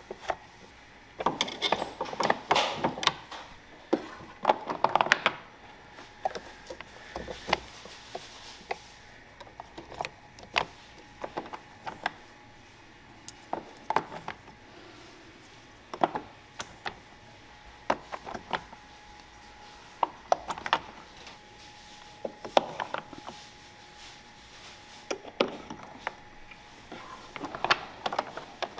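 Hard plastic parts of a sushi-making machine being handled by hand: irregular clicks, knocks and clatters as a tray, gears and a cover plate are lifted off and fitted onto metal shafts.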